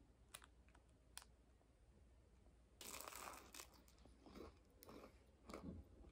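Faint eating and food-handling sounds at a breakfast table. Two small clicks come first. About three seconds in there is roughly a second of crisp crackling, followed by several shorter crunches.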